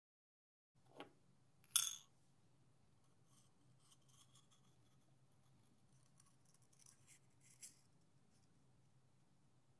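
Miniature knife blade on the mother-of-pearl inside of a pearl oyster shell: a light click about a second in and a sharper click just after, then faint scattered scratches and ticks of the blade on the shell over a low hum.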